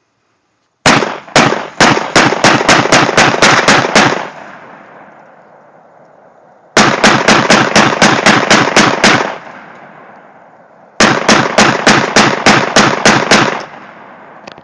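AK rifle firing three strings of rapid shots, the first opening with a few spaced shots before speeding up; each string is followed by echo that dies away.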